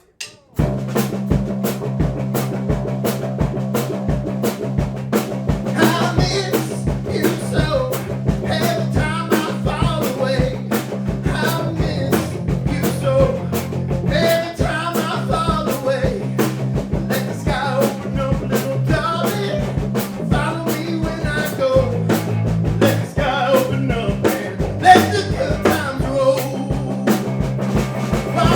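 Band playing an uptempo rock-and-roll song. A drum kit keeps an even beat under bass and guitar, starting together suddenly about half a second in. A lead vocal comes in about six seconds in.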